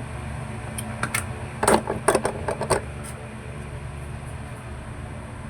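A quick run of sharp taps and clicks, about eight in two seconds, over a steady low hum.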